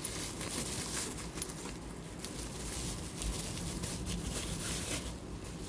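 Bubble-wrap plastic crinkling and rustling as it is handled and pulled off a flexible faucet extension hose, a dense run of small crackles that dies away about five seconds in.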